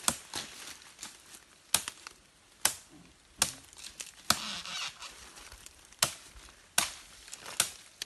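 Machete chopping into brush and stems: sharp strikes about once a second, with a rustle of leaves and cut vegetation after one near the middle.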